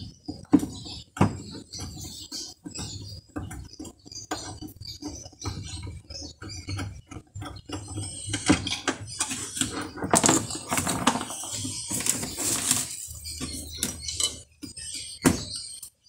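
Hand-work noise inside a washing machine's base as its motor is unbolted and pulled out: scattered clicks and knocks of tools and metal parts, a denser stretch of rattling and scraping in the middle, and a louder knock near the end.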